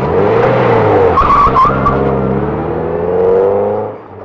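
Car engine running hard and revving, its pitch wavering up and down, then cutting off suddenly at the end.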